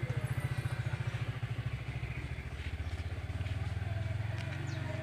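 An engine running steadily, heard as a fast, even low pulse.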